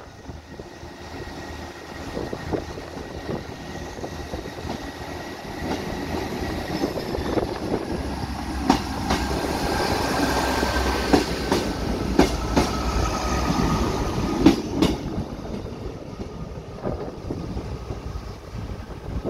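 Transport for Wales Class 158 diesel multiple unit pulling out and passing close by: its diesel engines run under load and its wheels click over the track joints, loudest about halfway through. A high whine drops slowly in pitch as it passes.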